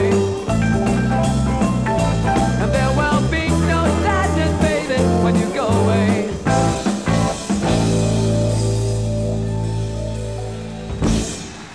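Progressive rock band with guitars, drums and keyboards playing the end of a live song: busy full-band playing with drums, then stop-chord stabs, a long held chord that slowly fades, and a final hit near the end.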